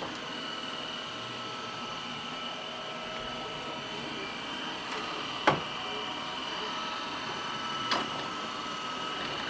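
Robot vacuum cleaner running with a steady whirring hum and a thin steady whine, with two sharp clicks, one about five and a half seconds in and one near eight seconds.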